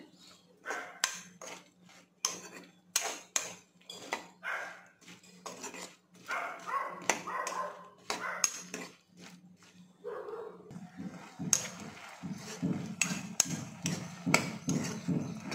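Steel spoon stirring okra pieces in a non-stick kadai, clinking and scraping against the pan in quick, irregular strikes. A low steady hum runs underneath and stops about two-thirds of the way through.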